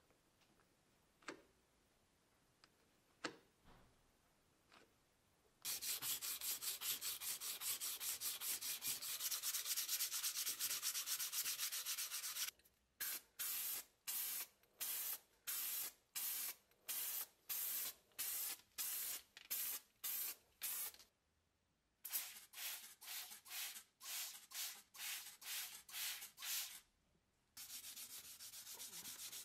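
Faint scrapes of a plastic spreader laying two-component filler on a metal bicycle seat post. Then comes a long hiss, followed by many short hissing bursts, about one a second, as two-component primer is sprayed on the seat parts. Near the end there is a steady rubbing of wet sanding paper on the primed tube.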